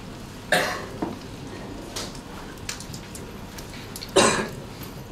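A person coughing twice, briefly about half a second in and again more strongly just after four seconds, with a few faint clicks in between.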